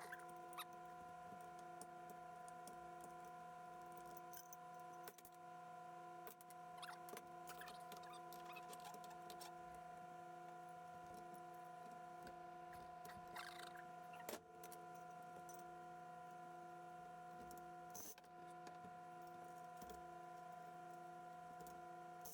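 Near silence: a faint steady hum with a few faint clicks and scrapes scattered through it.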